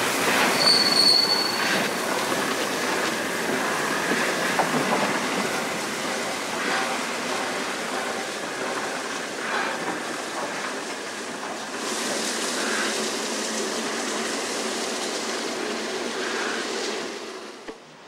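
Steam locomotive 60163 Tornado, a Peppercorn A1 Pacific, rolling slowly past and away with a steady rumble and wheels clicking over rail joints, and a brief high squeal about a second in.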